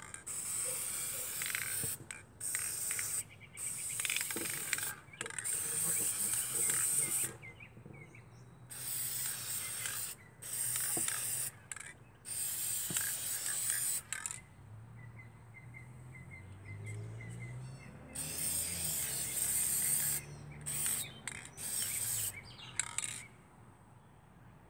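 Aerosol spray paint can spraying in about a dozen short bursts of hiss, each one to two seconds long, with a pause of a few seconds past the middle.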